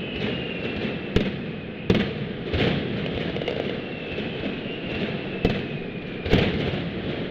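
Mascletà firecrackers going off in a dense, continuous crackle of gunpowder detonations, with about five sharper, louder bangs standing out. A faint high whistle glides slowly down in pitch behind them.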